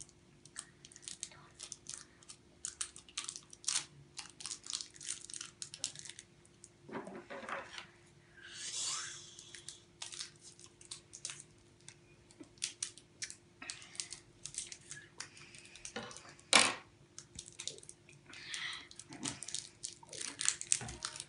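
Plastic sweet wrapper crinkling and tearing as it is worked open by hand and with scissors, a long run of short, sharp crackles with a louder one about two-thirds of the way through.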